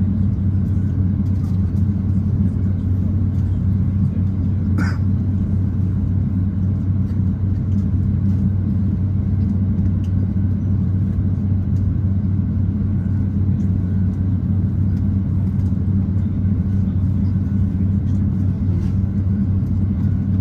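Cabin noise of an Airbus A350-900 taxiing, heard from inside the cabin: a steady low rumble from its Rolls-Royce Trent XWB engines at idle and the rolling aircraft. A brief higher-pitched sound comes about five seconds in.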